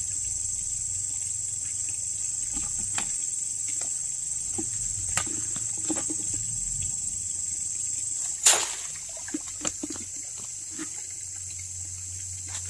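Steady high-pitched drone of insects such as crickets, with scattered small clicks and knocks. About eight and a half seconds in there is one louder sharp sound, after which the drone is fainter.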